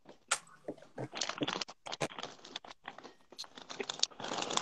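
Irregular crinkling, rustling and crunching close to the phone's microphone: a snack wrapper being handled and crunchy food being eaten.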